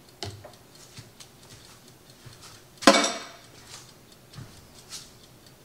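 A metal spoon clinking against a glass French press carafe of cold-brew coffee grounds: a few light taps, then one sharp ringing clink about three seconds in.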